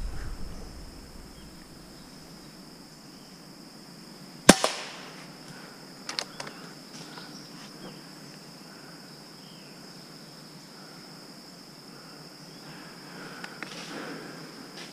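A single shot from a .25-calibre PCP air rifle, one sharp crack about four and a half seconds in, with a few lighter clicks a second and a half later.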